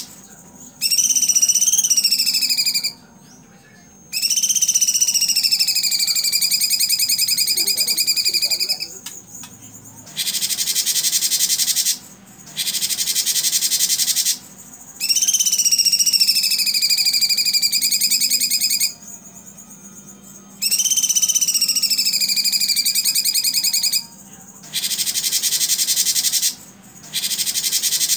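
Cucak cungkok songbird singing loud 'tembakan' phrases, two to four seconds each with short pauses between. Dense, harsh, high-pitched rattling bursts alternate with fast trills that dip in pitch and then level off.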